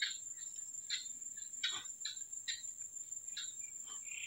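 Insects, such as crickets, keeping up a steady high-pitched whine, with short chirps breaking in about every half second to a second.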